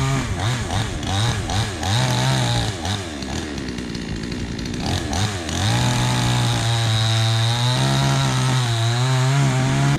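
Gas chainsaw cutting into a tree trunk, its engine speed dipping and recovering several times under load during the first few seconds and again about five seconds in, then holding steady at full throttle.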